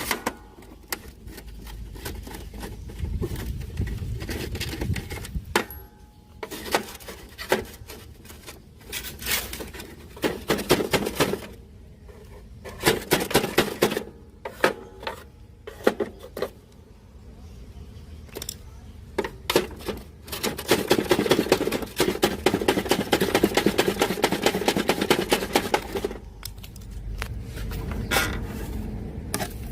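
Workbench handling noise from a Sharp GF560 radio cassette player being worked on: irregular clicks, knocks and scraping of plastic and metal parts, with a denser stretch of quick rattling clicks about two-thirds of the way through.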